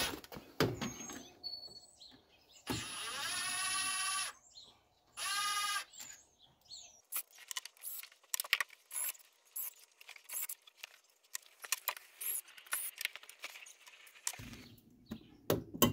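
Cordless power driver whirring in two short runs, the first about a second and a half, the second under a second, backing out the bolts on a Yamaha Rhino 450's engine case; then a long string of short, light metal clicks and clinks.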